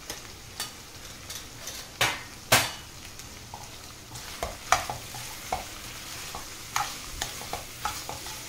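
A spoon stirring and scraping through tinda (round gourd) curry frying in a pan, working in freshly added spice powders, with a low sizzle throughout. Many sharp knocks of the spoon against the pan; the two loudest come about two seconds in.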